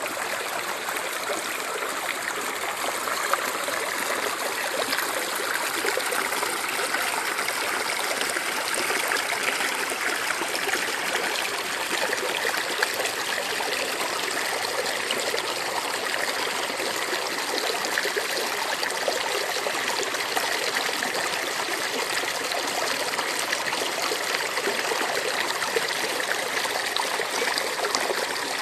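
River water running: a steady rushing flow with fine trickling detail.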